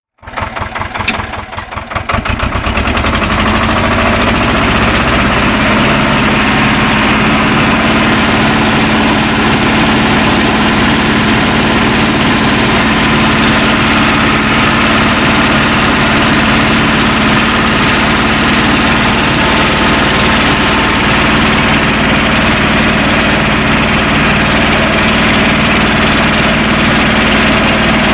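BJR Falcon 40 articulated tractor engine, heard from the driver's seat, coming up unevenly over the first two seconds and then running steadily at a constant speed. A thin high whine joins it about five seconds in.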